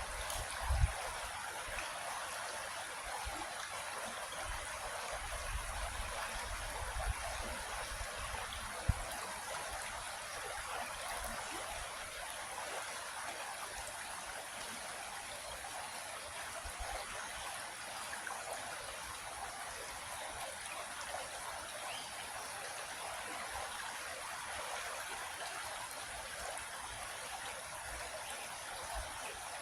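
Creek water flowing steadily in a continuous rushing trickle. Two brief low thumps stand out, about a second in and near nine seconds, over a low rumble in the first several seconds.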